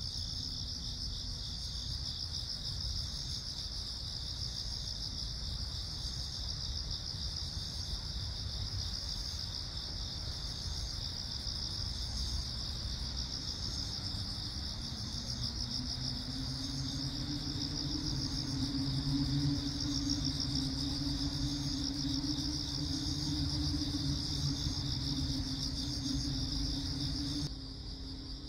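Early-autumn crickets and other insects chirring in a steady, finely pulsing chorus over a low background rumble. About halfway through, a low hum rises in and holds, and the sound drops abruptly near the end.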